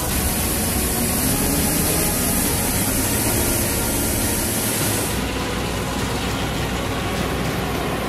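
Claas Lexion 440 combine harvester running under load: steady engine and threshing machinery with a broad hiss. About five seconds in the sound changes abruptly and the high hiss drops away.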